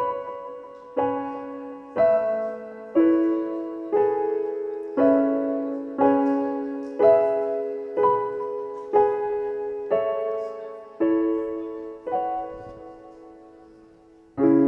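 Slow piano intro: chords struck about once a second, each left to ring and fade, the chord about twelve seconds in held longer until it nearly dies away before the next one.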